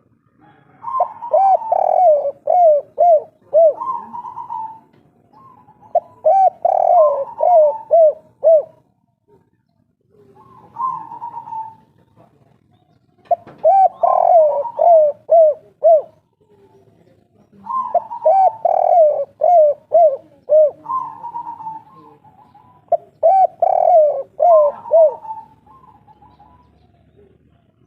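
Spotted dove (derkuku/tekukur) cooing its 'kuk 3' song: phrases of several quick coos followed by a longer note, repeated every four to five seconds, about six times.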